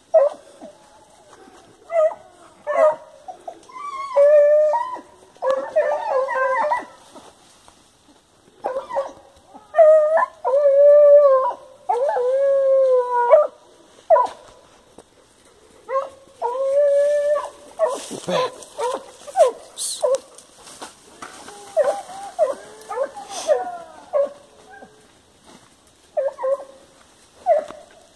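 Hunting dog baying on a paca's trail: a run of short barks mixed with drawn-out howling bays, some held about a second.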